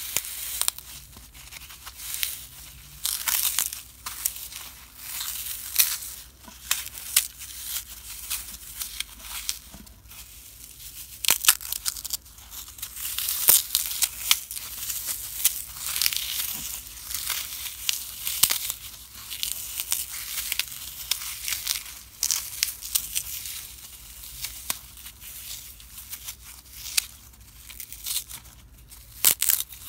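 Dry, unsoaked green floral foam crushed and crumbled between the fingers, giving a dense, uneven run of sharp crunches and crackles, some much louder than others.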